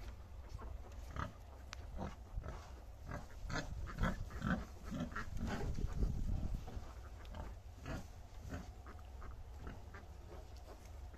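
A nursing sow and her litter of piglets: short grunts and many high squeaks and squeals as the piglets jostle and suckle at the teats, busiest in the middle and thinning out toward the end, over a low steady rumble.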